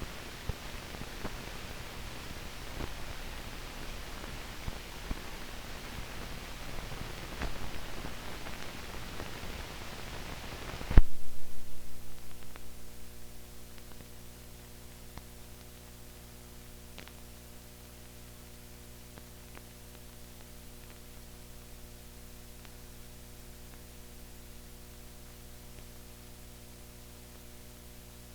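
Old film soundtrack with no programme sound: crackling hiss with scattered clicks, a sharp loud pop about eleven seconds in, then a quieter steady electrical hum.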